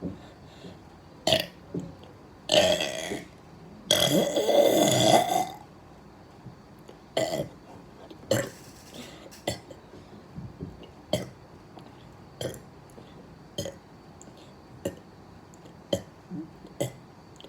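A person burping over and over: a short burp, a longer one, then a long, loud drawn-out burp about four seconds in that lasts around a second and a half, followed by a run of short, fainter burps about once a second.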